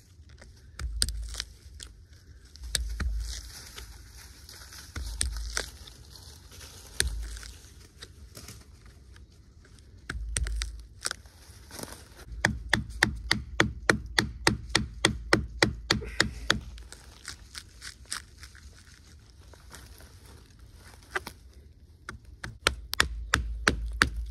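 A knife blade cutting and scraping into the bark of a fallen tree trunk. Scattered cuts and a few dull low thumps come first, then quick runs of strokes at about five a second around the middle and again near the end.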